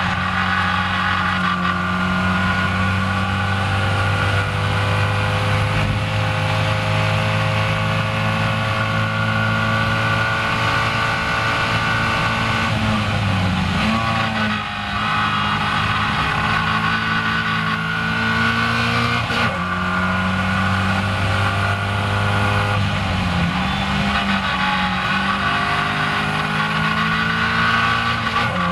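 Caterham Seven race car's engine at racing speed, heard from the open cockpit with wind rushing past. Its pitch climbs slowly, then wavers and drops at lifts and gear changes a little before halfway, again about two-thirds in, and once more near the end, picking up after each.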